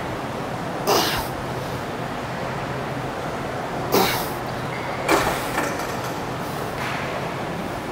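Steady gym room noise with a low hum, broken four times by short hissing puffs of air.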